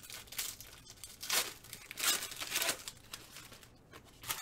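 A plastic trading-card pack wrapper being torn open and crinkled, in a run of crackles and rips that are loudest about a second and a half in and again around two seconds in.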